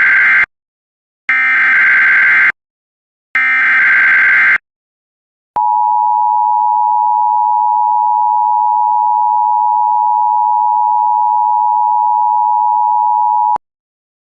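Emergency Alert System SAME header, three short bursts of harsh buzzing data tones about two seconds apart, followed by a single steady attention tone held for about eight seconds that cuts off sharply. It announces a snow squall warning.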